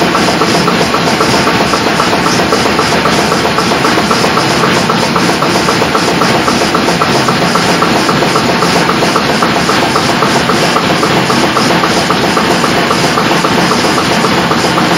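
Homemade single-cylinder Hvid-type 'sorta' diesel engine running steadily on a workbench, helped round by a belted electric motor. A steady rattle runs with it, which is the bench shaking, not anything in the engine.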